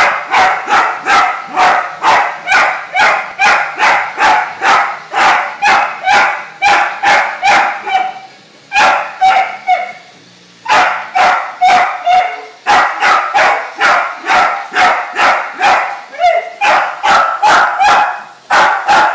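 Dachshund barking rapidly and persistently, about three sharp barks a second, with a few brief breaks; the dog is barking at a Roomba robot vacuum.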